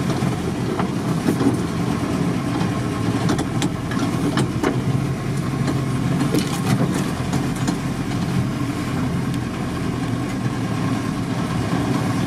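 Volkswagen Transporter T3 van driving slowly on a rough dirt track, heard from inside the cabin: a steady engine and road drone with scattered sharp clicks and knocks over the bumps.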